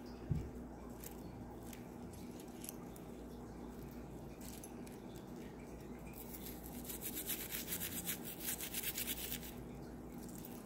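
Silver charm bracelets and rings being handled and rubbed in a bowl of soapy baking-soda water, with light metallic clinks and a soft thump just after the start. In the second half comes a fast run of rubbing or scrubbing strokes.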